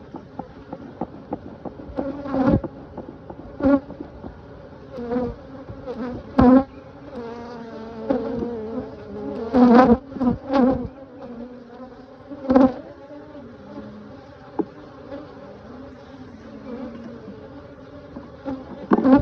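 Honey bees buzzing around an open hive: a steady hum of many bees, with several short, louder swells as single bees fly close past.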